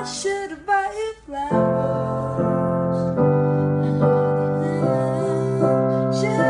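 A young singer's voice slides through a few bending notes almost unaccompanied. About a second and a half in, Yamaha piano chords come in and ring out, changing every second or so.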